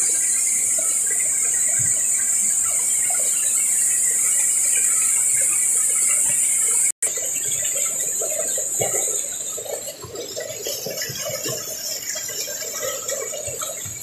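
Jungle insects shrilling in a steady high-pitched drone over the rush of a small waterfall. The sound cuts out for an instant about halfway through, and after that the insect drone is softer.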